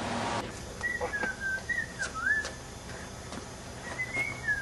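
Thin, high whistled notes in short gliding phrases, about three spaced-out groups, some sliding down and some up, over a quiet background with a few faint clicks.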